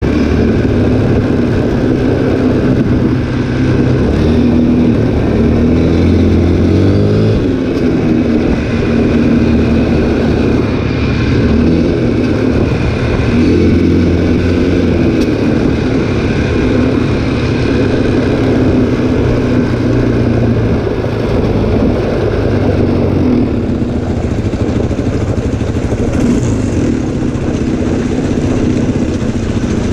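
ATV (quad bike) engine running while riding, heard close up from the rider's own machine, its pitch rising and falling several times as the throttle changes, over a steady rush of wind and tyre noise.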